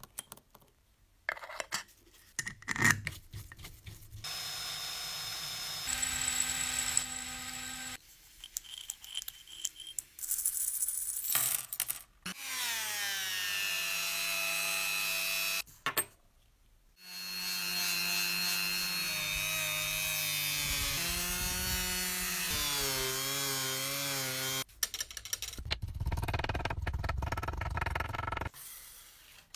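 Handheld rotary tool spinning a small polishing wheel against a model locomotive wheel, a high whine whose pitch falls and then wavers as it works. Before it come small clicks of screws dropping into a glass jar, and near the end there are knocks of a tape-wrapped hammer on a steel plate.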